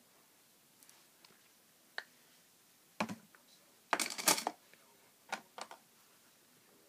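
Small makeup containers being handled and picked through: scattered clicks and taps, a knock about three seconds in, then a short rattling clatter, the loudest part, a second later, and a few more clicks near the end.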